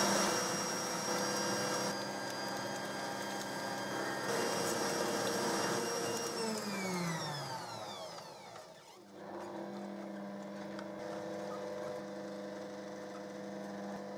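Bosch stand mixer running, its whisk beating eggs in a stainless steel bowl. About six seconds in the motor winds down with a falling whine and stops. It starts again about nine seconds in and runs steadily at a lower pitch as quark is mixed in.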